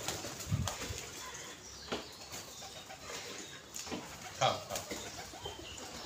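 Domestic pigeons flapping their wings in short flurries as they flutter down to and around a hand offering feed, the loudest flurry a little after halfway.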